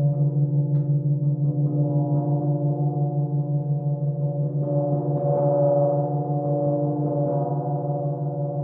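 Crystal singing bowls and a titanium gong ringing together in layered, sustained tones, with a strong low tone that wavers rapidly in level. The sound swells and brightens a little before the middle, then settles.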